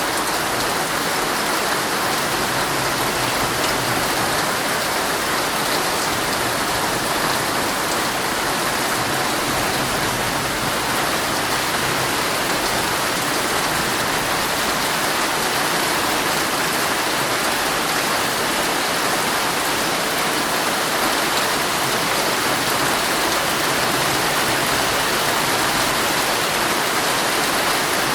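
Heavy rain falling steadily on a tent, a dense, even patter.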